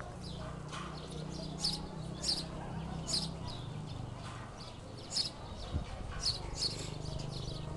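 A bird chirping: a series of short, high-pitched chirps, about eight of them, coming irregularly every half second to second.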